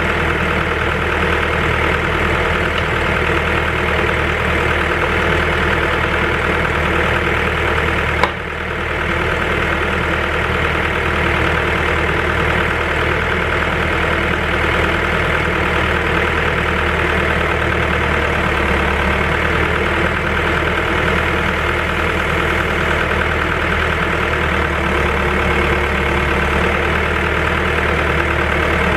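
Timberjack 1010B forwarder's diesel engine idling steadily, with one sharp click about eight seconds in.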